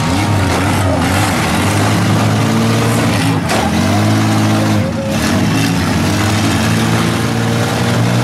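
Several demolition-derby minivan engines revving up and down as the vans reverse and ram, with a few sharp knocks of the vans' bodies colliding.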